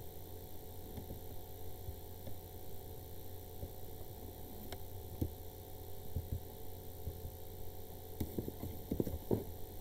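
Steady electrical mains hum on the recording, with a few faint computer mouse clicks, several of them near the end.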